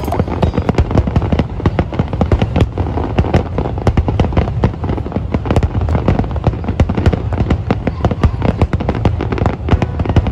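Fireworks display: a dense, continuous crackle of many small sharp pops, several a second, over a low rumble.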